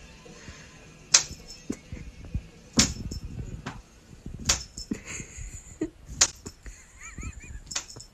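A hand slapping flat against a painted wall: five sharp slaps about every one and a half seconds, with lighter taps between them. A few faint high chirps come near the end.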